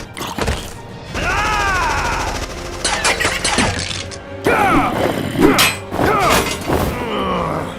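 Action-film soundtrack: music mixed with thuds and shot-like impacts, and tones that swoop up and down in pitch.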